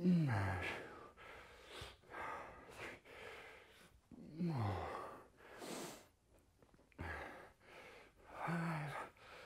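A man breathing hard with the strain of barbell Bulgarian split squats: loud breaths about once a second, two falling groans of effort about four seconds apart, and a short grunt near the end.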